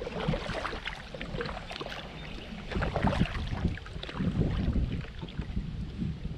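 Kayak paddle strokes splashing through the water, switching sides, with drips between strokes, over low wind rumble on the microphone.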